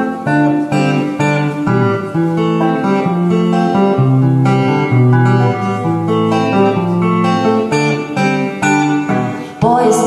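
Clean electric guitar played unaccompanied, picking a chord pattern note by note with a moving bass line. Right at the end a woman's voice comes in singing.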